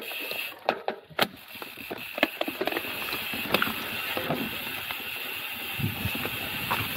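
Mountain bike rolling down a rough, steep trail: sharp knocks and rattles from the bike over bumps during the first three seconds, then steady tyre and wind noise with a thin high steady buzz.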